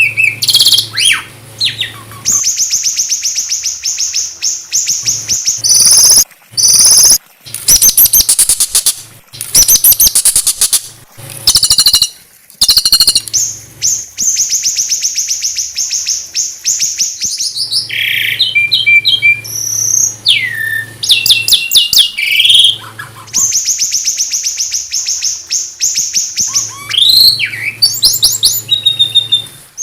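Small songbird singing a busy, loud song of long rapid trills, three times held for a few seconds. Between the trills come sharp chips, quick repeated notes and falling whistles: the rough 'tembakan' phrases used to tutor shamas.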